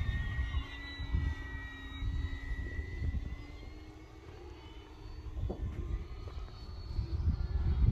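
Electric RC model airplane flying past, its motor a steady whine that fades about halfway through. Gusty wind buffets the microphone.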